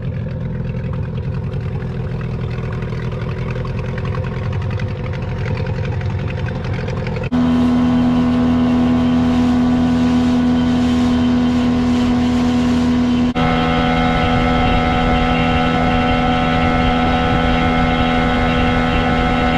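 Outboard motor pushing a small inflatable boat, running steadily at a constant speed. It jumps abruptly louder with a stronger whine about seven seconds in, and its tone shifts again about six seconds later.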